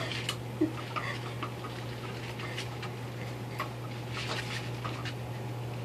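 Scattered light clicks and taps from six-week-old German Shepherd puppies' claws scrabbling on a tile floor around a string mop, over a steady low hum.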